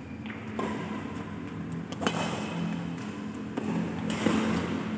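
Badminton rally: rackets striking a shuttlecock, three sharp hits about a second and a half apart, over a steady background hum.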